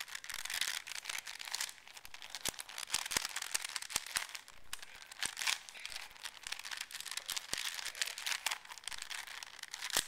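Plastic 4x4 Rubik's cube being scrambled by hand: a fast, irregular run of clicks and rattles as its outer layers are turned over and over.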